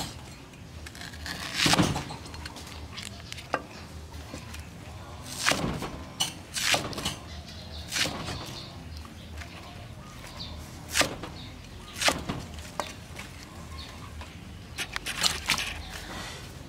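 A steel cleaver chopping through fresh bamboo shoots and striking a thick wooden chopping block: about ten single chops, spaced irregularly from half a second to a few seconds apart.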